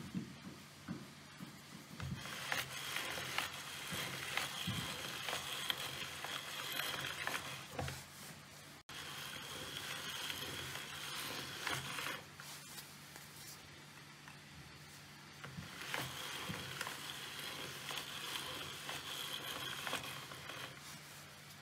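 Pasta machine's noodle-cutting rollers turning as sheets of egg-noodle dough are fed through: three bouts of mechanical running with quick clicks, separated by short pauses. A faint low hum lies underneath.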